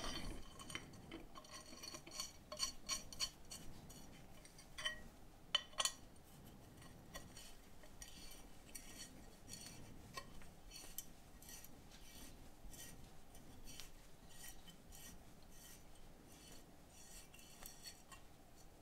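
Light metallic clicks and clinks from the steel parts of a homemade tap ratchet being handled and worked by hand, with two sharper clicks about six seconds in and a run of fainter clicking after.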